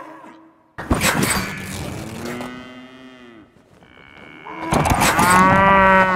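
Cow mooing twice, with a sudden thump about a second in; the second moo, near the end, is louder.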